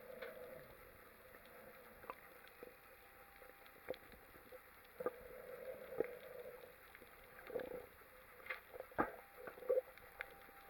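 Muffled underwater sound: scattered sharp clicks and a few short, bubbly gurgles over a faint hiss.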